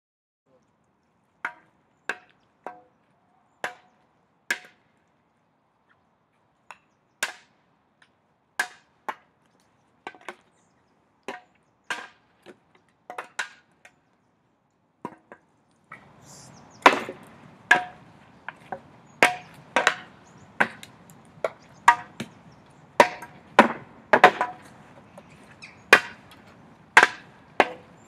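Practice weapons clacking against shields and against each other in a sparring bout: a string of sharp, separate knocks, spaced out at first and coming faster from about halfway, when a steady background hiss also sets in.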